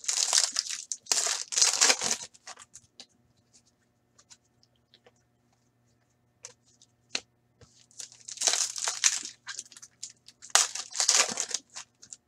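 Foil trading-card pack wrappers being torn open and crinkled, in four bursts: two right at the start and two in the second half. A few light taps of cards being handled come in between.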